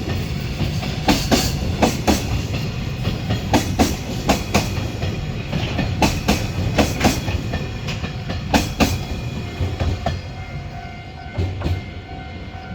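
Container freight train rolling past: the wagons' wheels clack over rail joints in quick pairs over a steady low rumble. The clacking thins out and fades about ten seconds in as the end of the train passes.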